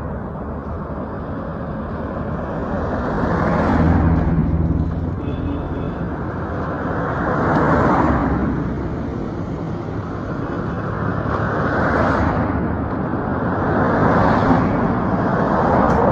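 Road traffic: vehicles pass close by one after another, each one swelling and fading, about five in all, over a steady street background.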